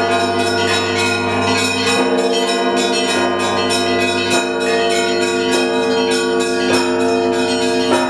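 Russian Orthodox church bells of the Trinity-Sergius Lavra ringing together: small bells struck in a quick, even rhythm of several strokes a second over the sustained ringing of larger, deeper bells. Paschal ringing calling to the evening service.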